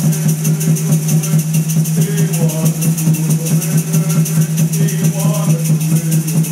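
Background music: a woman's song sung over a steady percussion beat of about three strokes a second.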